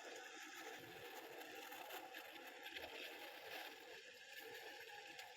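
A pot of kahwa simmering on a stove, heard as a faint, steady hiss with fine irregular crackle.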